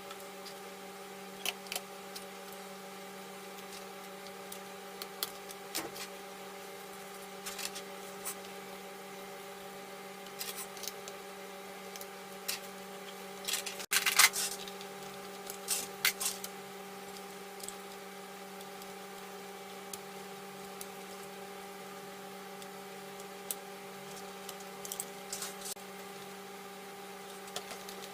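Scattered clicks, taps and knocks of a laptop's plastic casing, screws and small parts being handled while it is taken apart, with a cluster of louder knocks about halfway through, over a steady low hum.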